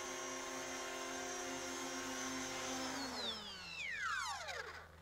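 E-flite Convergence VTOL's electric motors and propellers whining steadily in a low hover, then winding down in pitch from about three seconds in as the model sets down on the grass and the motors stop.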